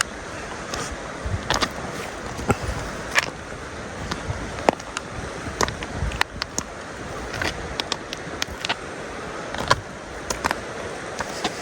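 Small mountain stream rushing steadily, with many irregular sharp clicks and knocks through it.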